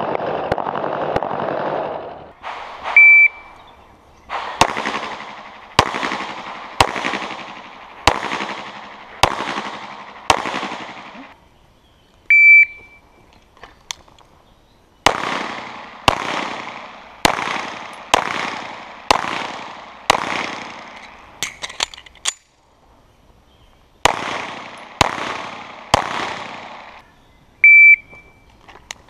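Semi-automatic pistol shots fired in fast pairs and strings, each crack trailing off in echo, with short pauses between strings. Three brief high-pitched beeps stand out among them.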